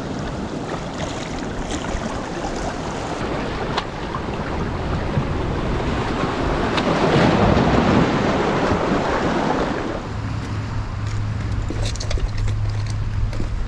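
Sea surf washing against a rocky shore, with wind buffeting the microphone; the surf swells and eases about halfway through. Near the end a steady low wind rumble, with a few footsteps on the rocks.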